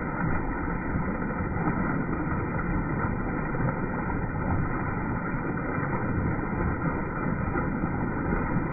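Small garden waterfall spilling over a stone ledge and splashing into a shallow pool: a steady rush of falling water.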